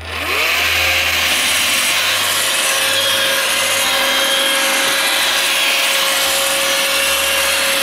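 iRobot Roomba 560 robot vacuum starting a clean cycle. Its motors spin up with a whine that rises over the first half second and then holds one steady pitch. A constant rushing noise from the brushes and suction runs with it.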